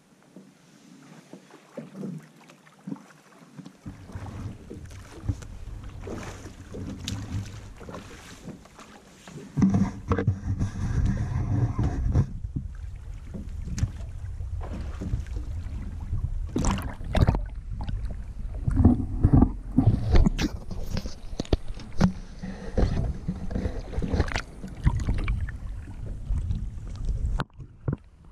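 River water rushing and splashing against a camera held at the surface and dipped under it, heard as a muffled low rumble with many sharp splashes and knocks. It is quiet for the first few seconds and grows much louder from about ten seconds in.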